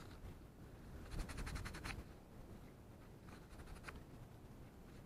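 Gloved fingers crumbling and rubbing a clod of field soil, a rapid scratchy rustle in two short spells.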